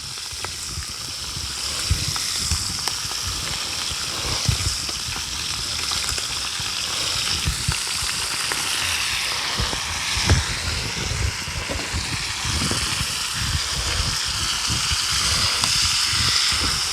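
Bacon strips and small sausages frying in lard on a plough-disc pan over an open wood fire: a steady sizzle with scattered pops, growing a little louder toward the end.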